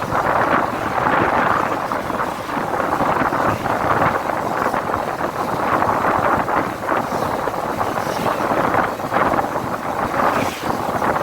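Wind buffeting the microphone, a steady rushing noise that keeps rising and falling with no pauses.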